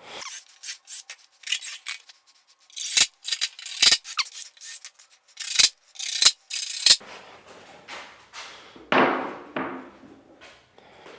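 Wooden boards scraping and rubbing against each other in short, irregular strokes, with about five sharp knocks of wood on wood over the first seven seconds, then a softer rub about nine seconds in: a wooden shelf being worked into place in a bookcase carcass.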